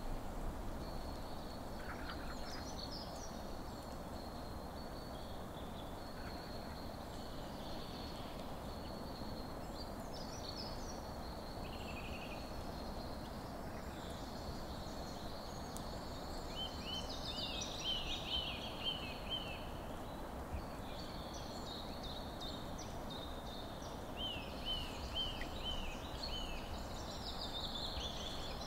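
Several birds singing over a steady background hiss. Two rapid runs of repeated, quickly falling notes stand out, about two-thirds of the way through and again near the end.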